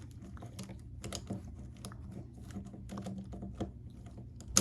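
Irregular run of small plastic clicks from a Rubik's cube being handled and twisted, over a low steady hum.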